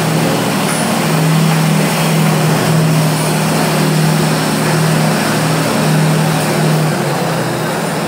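Diesel train engine running with a steady low drone, easing off a little near the end.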